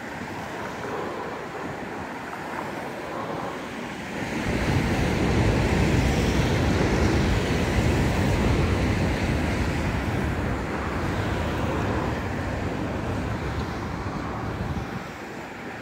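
Wind buffeting the microphone: a loud rushing rumble that swells about four seconds in and eases off near the end.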